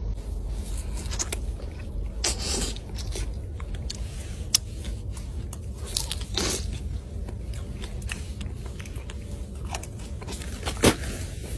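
A person biting and chewing something crunchy close to the microphone, with sharp crunches every second or few seconds over a steady low rumble.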